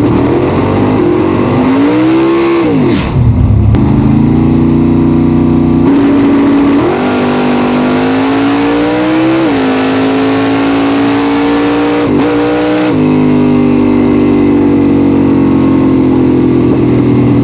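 Super Gas drag car's engine at full throttle through a quarter-mile pass, heard from inside the cockpit. The pitch climbs, drops sharply a few times as the gears change, then falls steadily in the last few seconds as the car slows.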